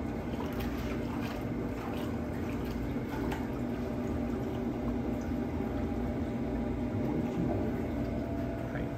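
Water running steadily in a stainless-steel darkroom sink, over a constant low hum.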